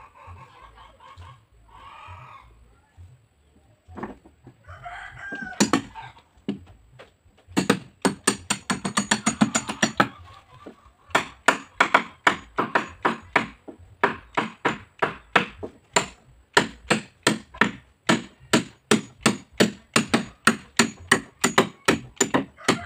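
Claw hammer driving nails into the meranti plank hull of a wooden jukung boat: a quick run of blows about seven seconds in, then steady strikes about two to three a second.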